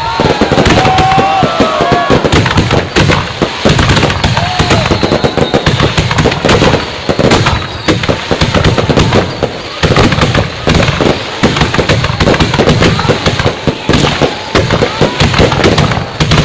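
Fireworks going off: a dense, continuous barrage of rapid loud cracks and bangs.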